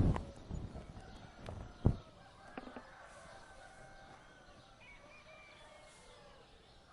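A rooster's loud crow tails off at the start. A sharp knock comes about two seconds in, then faint, wavering calls of distant roosters and other fowl.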